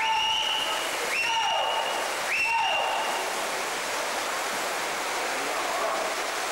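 Steady splashing and crowd din in an indoor swimming hall as a swimmer races. Three short high whistle-like tones sound about a second apart near the start.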